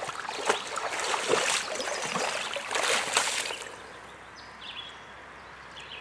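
A hooked smallmouth bass thrashing and splashing at the water's surface, repeated splashes that die down about three and a half seconds in.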